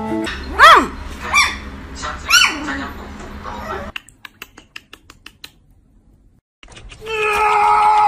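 Three short calls from a pet animal, each rising then falling in pitch, the first the loudest. Then a few faint clicks, and near the end a loud, steady sound made of several held tones starts.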